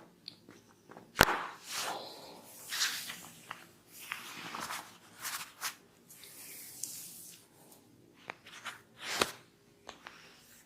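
Hands rubbing, swishing and patting over skin and hair during a head and neck massage. There are two sharp, loud strikes, one about a second in and one near the end.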